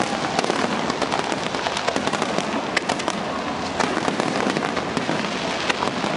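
Fireworks display going off: an unbroken crackle of many sharp pops and bangs from gold crackling shells bursting overhead.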